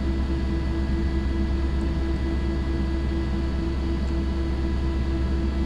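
Steady low hum with an even hiss and a few faint steady tones above it, unchanging throughout: the background noise of the voice recording.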